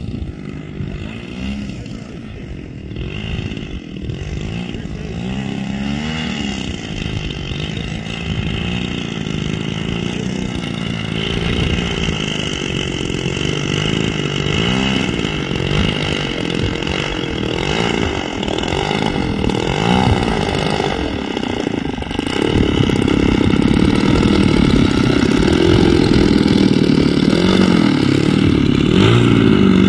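The DLE-55 single-cylinder two-stroke gasoline engine of a large-scale FW-190 model airplane running at low throttle while it taxis. Its pitch rises and falls again and again as the throttle is worked, and it grows steadily louder as it comes closer, with a clear jump in loudness about two-thirds of the way through.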